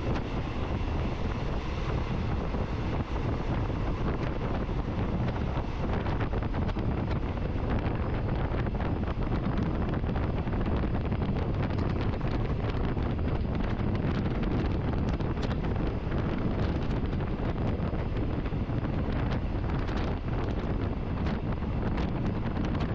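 Passenger train running steadily along the track, heard from inside the carriage: a constant rumble of wheels on rail with many faint clicks, and wind on the microphone.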